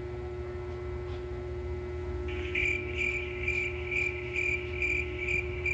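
Awkward-silence cricket sound effect: a cricket chirping about twice a second, coming in a little over two seconds in, over a steady low hum.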